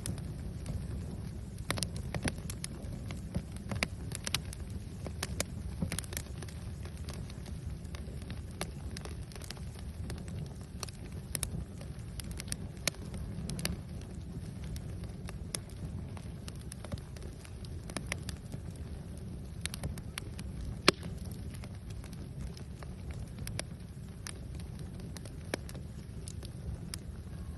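A fire crackling: irregular sharp snaps and pops over a steady low rumble, with one louder pop about twenty seconds in.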